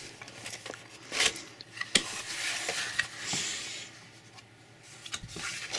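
Handling of a cardboard smartphone box as its lid is lifted off: a couple of sharp taps and knocks, then a papery rubbing as the cardboard slides apart, and small clicks near the end.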